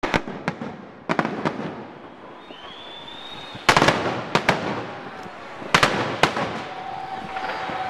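Fireworks finale: clusters of sharp bangs and crackling bursts, with a short whistle about two and a half seconds in.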